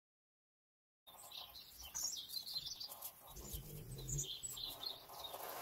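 Birds chirping repeatedly, starting about a second in, with a low rumble briefly underneath in the middle.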